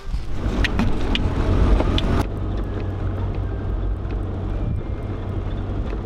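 A vehicle driving on a dirt road: a steady low rumble of engine and tyres, with a few sharp clicks in the first two seconds.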